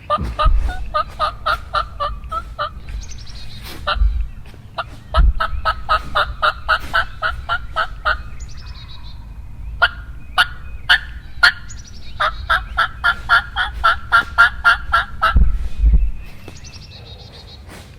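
Hen-turkey yelping on a hunter's turkey call: three long runs of evenly spaced yelps, about four notes a second, with a few low thumps between them.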